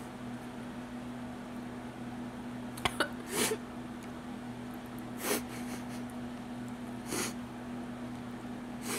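A crying woman sniffling and catching her breath, short breathy sobs every two seconds or so, with a couple of sharp clicks about three seconds in. A steady low hum runs underneath.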